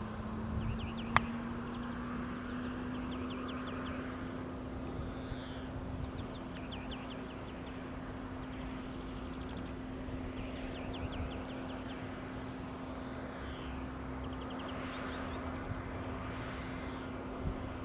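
Distant Airbus A320 jet engines humming steadily, the pitch creeping up slightly, while small birds chirp and trill over it again and again.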